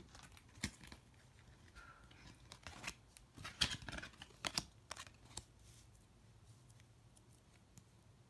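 Oracle cards being laid down and slid into place on a wooden table: a scatter of faint taps and light card scrapes, busiest between about three and five and a half seconds in.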